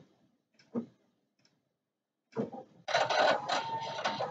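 Husqvarna Viking Designer Topaz 50 embroidery machine sewing a tack-down outline on hooped stabilizer. A few scattered soft ticks come first; about two seconds in, a loud, rapid mechanical run with a steady whine starts and lasts about two seconds.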